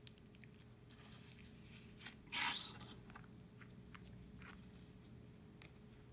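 Plastic piping bags being handled. A short crinkling rustle about two seconds in stands out among faint light clicks and taps.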